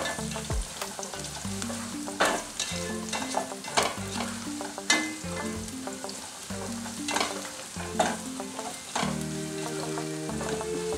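Chopped onions, garlic and ginger sizzling in hot oil in a ceramic-lined pot while a spatula stirs and scrapes through them, about half a dozen sharp strokes over a steady hiss. Soft background music with changing low notes runs under it.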